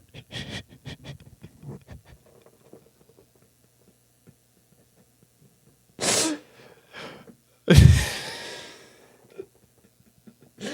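A person's voice making two explosive bursts, sneeze-like: a short one about six seconds in, then a louder one about a second and a half later that dies away slowly.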